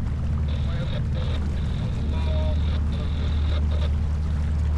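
Steady low wind rumble on the microphone, with water rushing along the hull of a J24 keelboat under sail.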